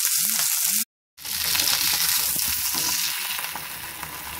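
Washed pirandai (adamant creeper) stems and leaves sizzling and spattering in hot sesame oil in an iron kadai, the spattering coming from the wash water still on them, while a spatula stirs them. The sound drops out completely for a split second about a second in, then the sizzling carries on.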